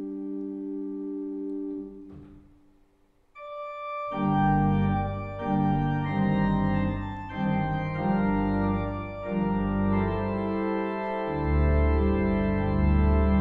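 Church organ playing. A soft held chord dies away about two seconds in, and after a short pause a single high note sounds. The full organ then enters with sustained chords over pedal bass, and the deep pedal notes grow heavier near the end.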